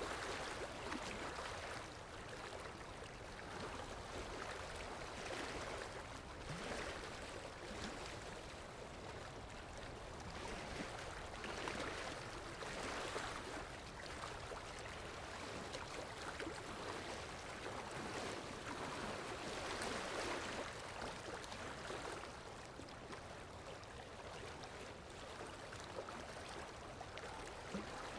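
Floodwater in a river in flash flood, rushing: a steady churning noise that swells and eases every few seconds.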